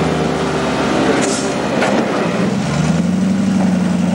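Engine of a Range Rover-bodied off-road trial car running at low revs as it crawls over rocks. The revs rise about three seconds in and hold there as it climbs. A few light knocks come around a second in.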